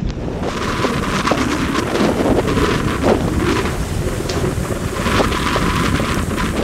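Wind buffeting the microphone over the rush and splash of stream water as a Land Rover Defender wades through a shallow ford, with many short sharp splashes.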